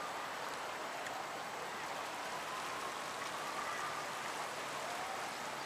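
Steady rushing of fast-flowing floodwater on a swollen river, an even hiss without distinct splashes.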